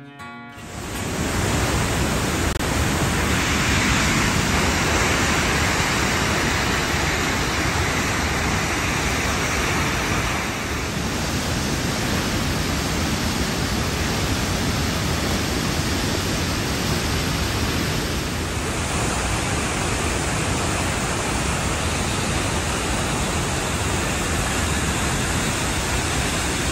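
Sunwapta Falls on the Sunwapta River, with the rapids above it: white water rushing in a loud, steady, even wash of noise.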